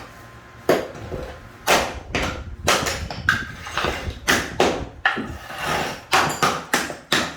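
A rapid, irregular run of sharp knocks and clatters of hard objects against each other, about two a second.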